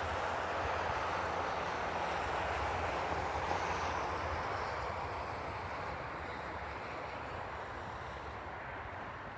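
City traffic: a vehicle's engine rumble and tyre hiss passing, then slowly fading over the second half.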